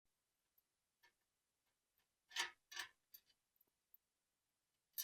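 Near silence broken by a few faint clicks, with two slightly louder short ticks a little over two seconds in.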